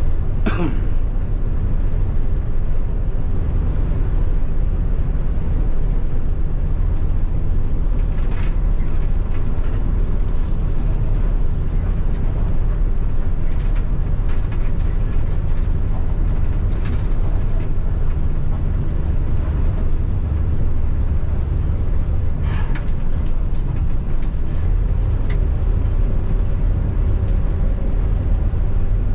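Tour bus diesel engine running steadily under way, a continuous low drone, with a short falling whine right at the start and two brief rushes of noise, about a third and three-quarters of the way through.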